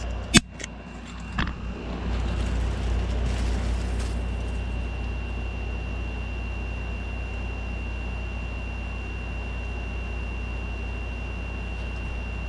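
Kool King window air conditioner running with a steady low hum, as it is shut down: two sharp clicks about half a second and a second and a half in, then around four seconds in the loud hissing rush drops away, leaving the hum and a thin steady high whine.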